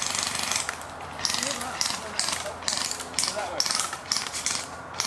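Classic Army M132 Microgun, an HPA-powered airsoft minigun, firing in a string of short bursts of rapid fire with brief gaps between them.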